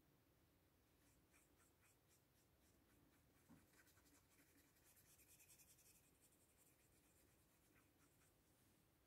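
Faint, soft scratching of a fine paintbrush stroking watercolour onto paper, with a denser run of strokes a little past the middle and a small tap about three and a half seconds in.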